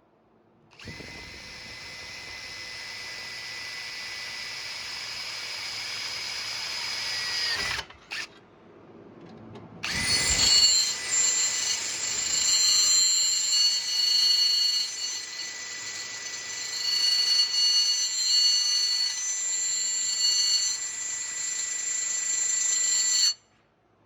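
Power drill running in two stretches: a steady whine for about seven seconds that winds down at the end, then after a short pause a louder, uneven run of about thirteen seconds.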